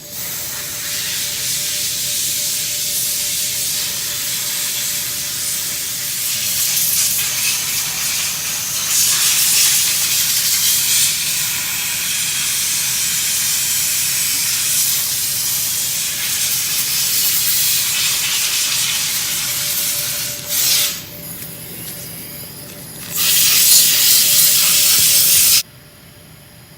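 Pressurised spray hissing loudly in long blasts, likely used to clean out the embroidery machine head during servicing. It runs steadily for about twenty seconds, eases off briefly, then gives a final strong blast that cuts off sharply.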